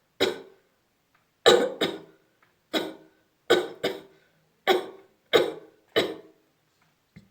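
A person coughing deliberately and repeatedly, about nine short, sharp coughs roughly a second apart, some in quick pairs.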